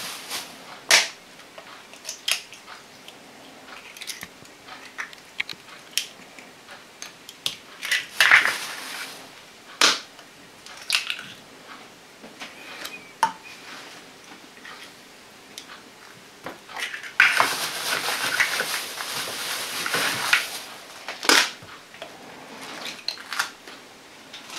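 Raw eggs being cracked and pulled apart by hand to separate the yolks from the whites: repeated sharp taps and crackles of eggshell, with plastic-bag rustling in two longer spells, the longer one about two thirds of the way through.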